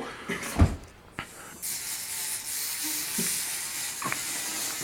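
A steady hiss starts about a second and a half in and keeps going without a break, after a few soft knocks and a click.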